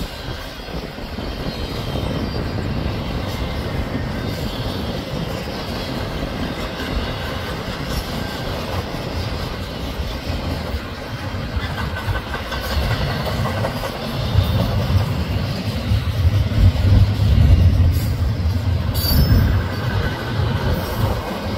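Double-stack intermodal train's loaded well cars rolling past, steel wheels rumbling steadily on the rails with clicks over the joints; the low rumble grows louder for several seconds in the second half.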